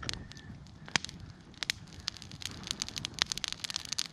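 Brush-pile fire of dry branches and twigs burning, crackling with irregular sharp pops; one louder pop comes about a second in.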